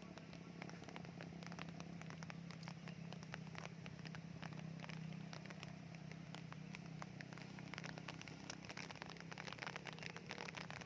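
Soft raindrops falling, many separate drips landing irregularly, over a steady low hum.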